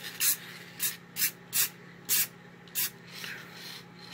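Aerosol spray can of clear coat being sprayed in a series of short hissing puffs, about two a second, then a softer, longer hiss near the end.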